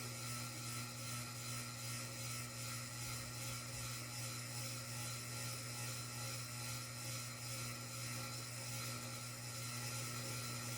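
Ceiling fan running: a steady low motor hum with a faint whir.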